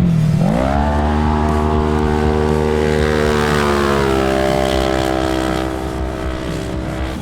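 Polaris RZR side-by-side's engine running hard. The revs dip at the start, climb quickly, then hold high and steady, easing down slightly about four seconds in.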